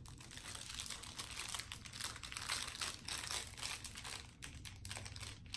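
Thin plastic packaging crinkling and rustling as it is handled, an irregular run of small crackles.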